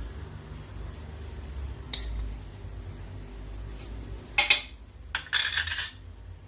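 Metal utensil clinking and scraping against a cooking pot while frying vegetables are stirred and seasoned: a single sharp clink about two seconds in, then louder clattering and scraping near the end.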